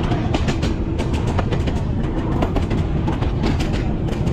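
Train running on the rails: a steady low rumble with frequent sharp, irregular clicks and rattles from the wheels and carriages.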